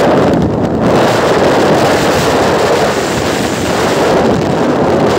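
Loud, steady wind rushing over the microphone of a phone carried on a motorcycle at highway speed, mixed with road noise.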